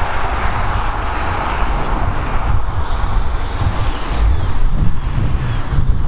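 Wind buffeting the microphone in uneven gusts, over the steady wash of surf breaking on the rocks below.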